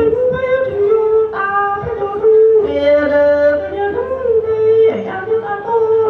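A man singing Hmong kwv txhiaj (sung poetry) solo into a microphone: long held notes joined by slides in pitch, with no accompaniment.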